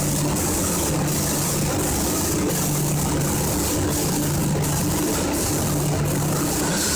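Automatic spray painting line running: a steady mechanical hum under a constant hiss. The hiss dips briefly about every 0.7 seconds.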